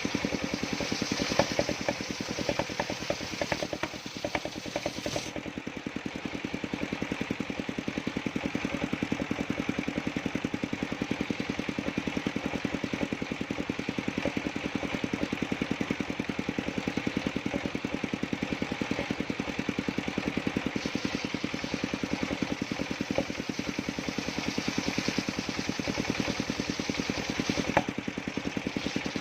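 A sawmill engine running steadily with a fast, even beat, and a few sharp clicks in the first few seconds.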